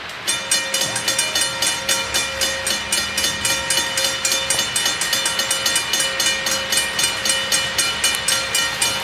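A railroad grade-crossing bell ringing in rapid, even strikes, about four a second, each leaving a ringing metallic tone. It starts suddenly, with the crossing signal activated by an approaching train.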